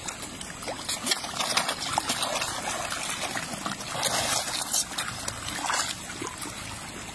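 A dense crowd of river fish thrashing and splashing at the surface around a hand held in the water: continuous, uneven churning splashes and spatters.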